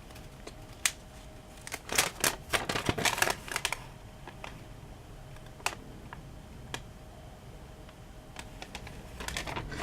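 Paper packaging and small items from a parcel being handled. A dense run of sharp clicks and crinkles comes about two to four seconds in, with scattered single clicks after.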